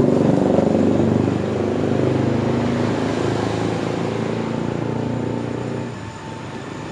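A motor vehicle's engine running steadily close by, then fading about six seconds in as it moves off.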